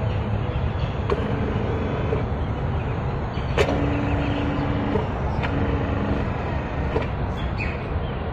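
Scale RC hydraulic excavator working its boom: a steady rushing machine noise with a few sharp clicks, and an electric hum held twice for about a second each in the middle as the arm moves.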